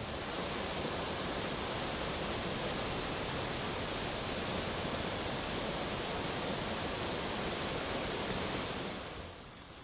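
Muddy river in flash flood, rushing past in a steady, even wash of water noise that drops away about nine seconds in.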